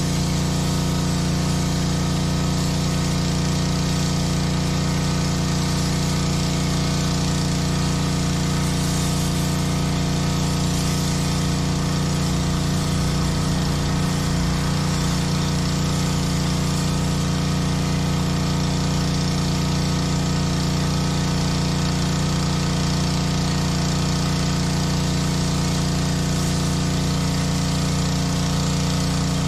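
Honda pressure washer's small petrol engine running steadily at constant speed, with an even hiss from the high-pressure spray.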